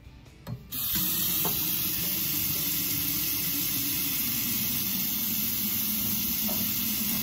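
Kohler kitchen faucet turned on about a second in, then water running steadily from the tap into the sink.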